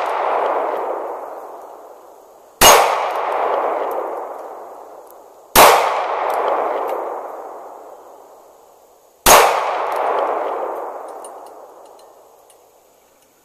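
Three .380 shots from a Ruger LCP pocket pistol, about three seconds apart, each striking a hanging steel plate target that rings on for about three seconds. The ringing from a shot just before also fades out at the start.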